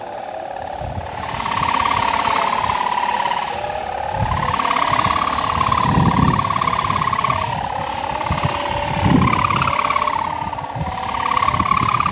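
3-metre sendaren kite hummer strung with plastic film (mika), droning loudly from the kite overhead. Its tone wavers up and down in pitch and swells in loudness every few seconds as the wind gusts. Wind rumbles on the microphone underneath.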